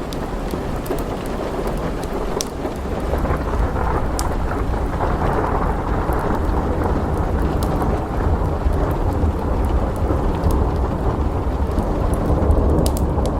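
Steady rain with a deep, rolling thunder rumble that swells a few seconds in and carries on. Scattered sharp crackles from a fireplace sound over it.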